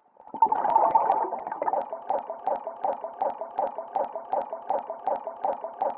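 Scuba regulator exhaling underwater: a loud rush of bubbles about a third of a second in, settling into a steady gurgle of bubble pulses, about three a second.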